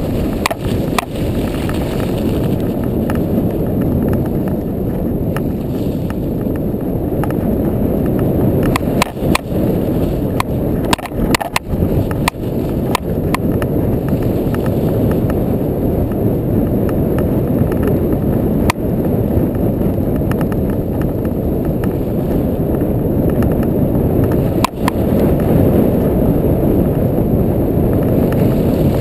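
ATV running steadily as it ploughs through deep snow, heard as a dense low rumble with scattered sharp knocks.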